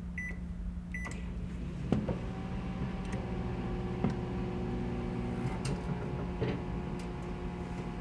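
Microwave oven keypad beeping twice, then the oven starting with a thunk about two seconds in and running with a steady hum. A few sharp clicks sound through the hum.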